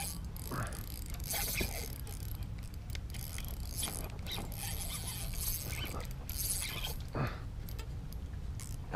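Spinning fishing reel being cranked against a hooked fish, its gears giving a ratcheting mechanical whir in uneven spurts, over a steady low rumble.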